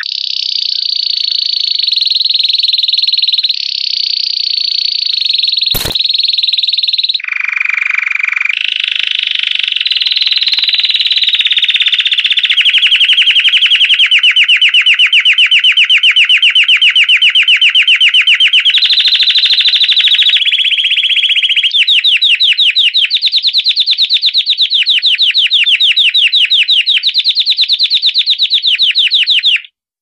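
Belgian canary singing campainha (bell) song: a continuous run of very fast trills and rolls in phrases that change pitch every few seconds. There is a single sharp click about six seconds in, and the song cuts off abruptly just before the end.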